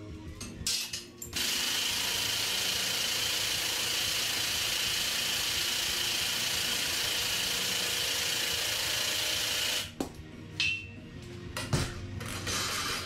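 Power tool running steadily for about eight seconds with an even hiss, starting and stopping abruptly, followed by a few sharp clicks and knocks near the end.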